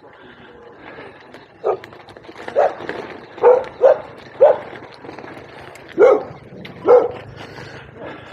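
A dog barking: about seven short single barks, spaced irregularly from half a second to a second and a half apart.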